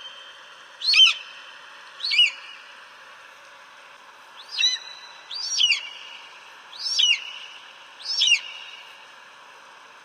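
Eagle calling: a series of six short, high-pitched, downward-sliding screeches, about one a second with a pause of two seconds partway through, over a steady hiss.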